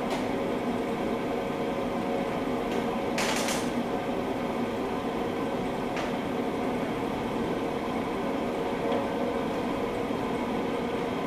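Steady machine hum with a low drone, with a brief hiss about three seconds in and a faint click about six seconds in.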